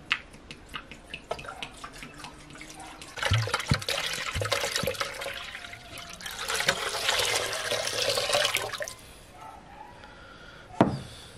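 Water poured from an earthenware jug into an aluminium cooking pot, splashing onto the water already in it, in two pours of a few seconds each. A few light clicks come before the pouring, and a single sharp knock near the end.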